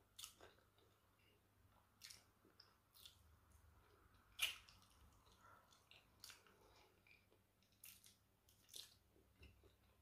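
Faint, close-up eating sounds of boiled yam with owo soup eaten by hand: soft chewing with scattered wet mouth clicks and smacks as fingers are licked, the loudest smack about four and a half seconds in.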